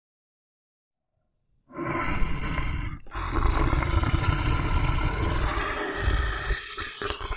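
An animal roaring after a short silence: a brief call, then a longer deep, rough call lasting about four seconds.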